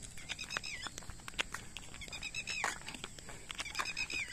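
An animal calling in three short runs of rapid high-pitched notes, the second ending in a long falling slur, over scattered light clicks and taps.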